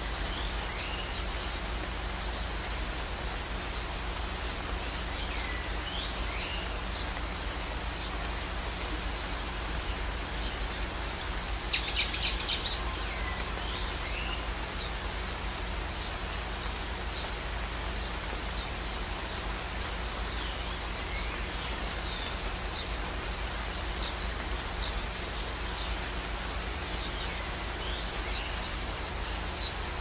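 Steady rush of a waterfall pouring into a pool, with birds chirping now and then over it. About twelve seconds in, a brief, louder burst of high bird calls.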